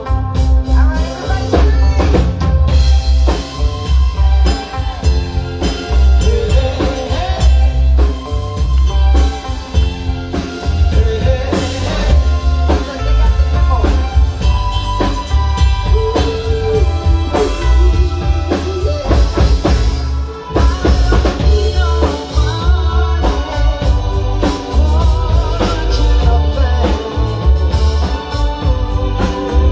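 A live band playing a song, with a driving drum kit (bass drum, snare and rimshots), bass and other instruments.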